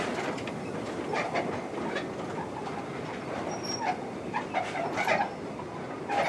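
Narrow-gauge freight wagons rolling slowly along the track, wheels clicking over the rail joints, with short repeated squeaks in the second half.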